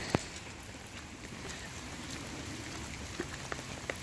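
Steady rain, an even hiss, with a few sharp taps: a loud one right at the start and several more near the end.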